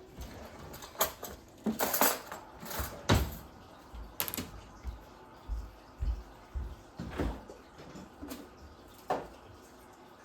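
A knife chopping onion and bell pepper on a cutting board: a dozen or so irregular sharp knocks and clacks.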